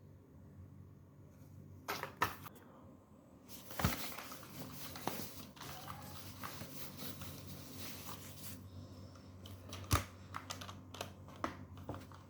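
A mechanical keyboard and its packaging being handled: scattered sharp clicks and knocks, with about five seconds of rustling in the middle.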